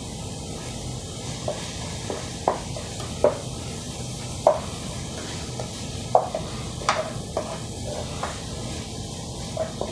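Chopped onions sizzling as they sauté in hot oil in a pan, with a utensil knocking and scraping against the pan about a dozen times as they are stirred.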